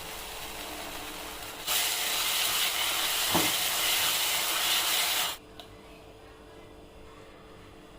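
Food sizzling and hissing in a hot pan. It gets suddenly louder just under two seconds in and drops back about five seconds in.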